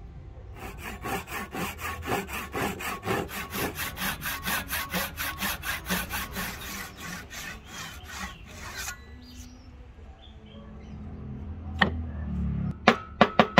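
Hand tool cutting wood in quick, even back-and-forth strokes, about four a second, stopping about nine seconds in; a few sharp knocks follow near the end.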